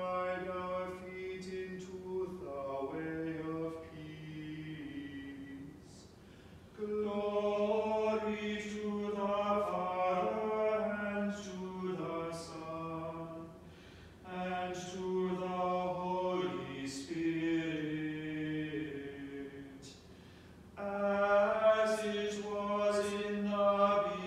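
Unaccompanied male voices chanting a canticle of the Anglican office, in phrases of held notes on a reciting pitch. The phrases last about five to six seconds, with brief pauses for breath between them.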